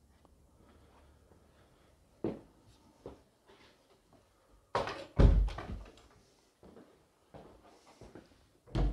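A door being handled and shut indoors: a couple of knocks, then a loud clatter with a deep thud about five seconds in, and another knock near the end.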